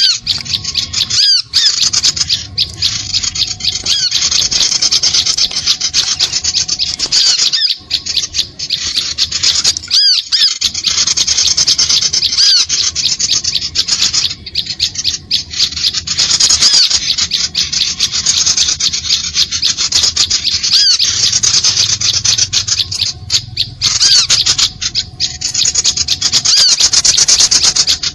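Small birds' calls played as a lure recording: a dense, high-pitched, rapid chattering trill with short chirps over it, broken by brief pauses every few seconds.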